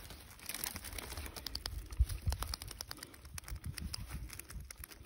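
Rapid, irregular clicking and rustling as a yabby net with a wire frame is handled on dry grass, over low handling thumps, the loudest about two seconds in.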